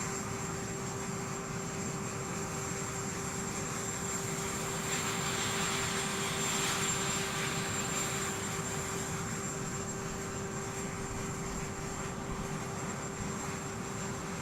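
Aircraft engines running steadily, a rushing noise with a constant high whine and a low hum, swelling a little about halfway through.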